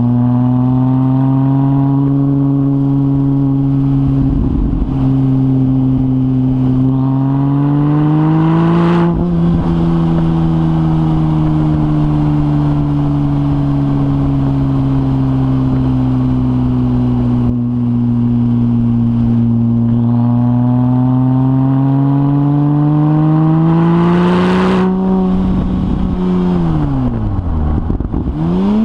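Porsche 996 Turbo's twin-turbo flat-six running through a decat Kline 70 mm X exhaust, the engine note climbing, easing off and climbing again as the car is driven. A short rushing burst comes at the top of each climb, about a third of the way in and again near the end, followed by a quick drop and recovery in engine pitch.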